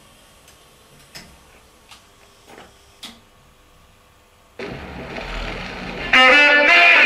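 Rock-Ola Rhapsody 160 jukebox loading a record: a few faint clicks from the changer mechanism, then the needle drops onto the record about four and a half seconds in with a hiss and low rumble of surface noise, and loud guitar music starts near the end.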